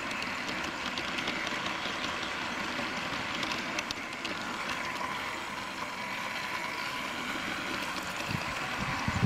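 A 16mm-scale live-steam garden railway train running along the track, heard from on board as a steady rattle with fine rapid clicking. A few low knocks come near the end.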